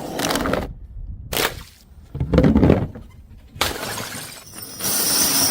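Glass bottles and jars smashing: a series of separate crashes with short gaps between them, one heavier and deeper in the middle. Bright, ringing shatter of glass near the end.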